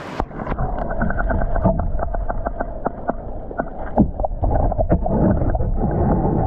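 A trout stream heard underwater through a GoPro in its waterproof housing: a muffled, steady low rush of water with many small sharp clicks and ticks scattered through it.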